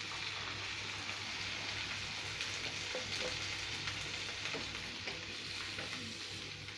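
Chopped onions, tomatoes and whole spices sizzling in hot oil in a kadhai with half a cup of water just poured in: a steady hiss. A few light clicks of a spatula stirring the mix come in the second half.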